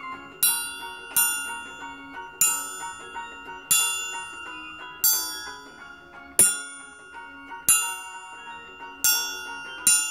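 Small steel triangle struck with a beater about nine times, roughly once a second, each strike ringing bright and fading before the next.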